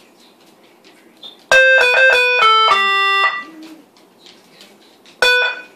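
Electronic sound maker playing a quick run of about six beeping notes, stepping down in pitch, then one more short note near the end.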